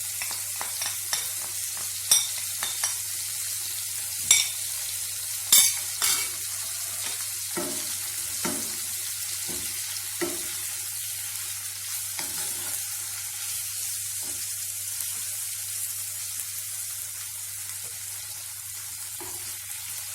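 Chicken pieces with spices sizzling as they fry in hot oil in a pan, with a steady hiss throughout. A spatula scrapes and knocks against the pan as it stirs, with the sharpest knocks in the first six seconds or so.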